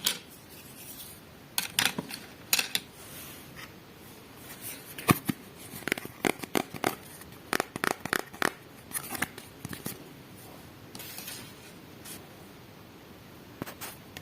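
Small plastic toy pieces and packaging being handled: irregular sharp clicks and taps, coming thickest in a run through the middle.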